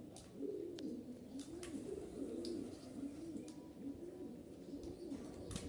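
Pigeons cooing steadily, in repeated low rising-and-falling coos, with a few light clicks.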